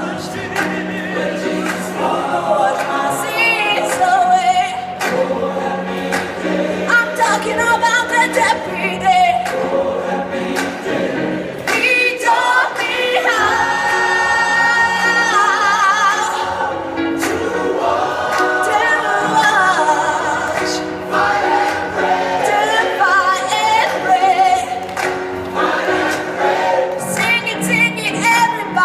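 A choir singing a song, many voices together in sustained, gliding notes over a steady low held note.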